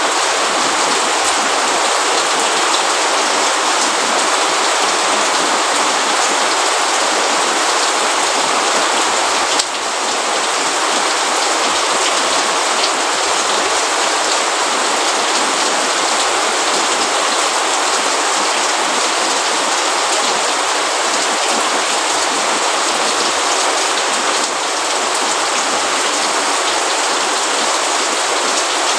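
Steady rain falling, a dense, even hiss, with a small dip in loudness about ten seconds in.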